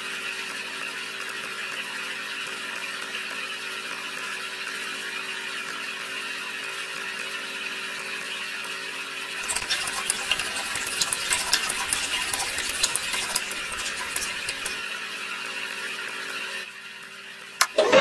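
Small DC motor of a homemade mini concrete mixer running with a steady whine. From about halfway through, irregular gritty clicking and rattling comes from the turning drum and its mix, and there is one sharp click near the end.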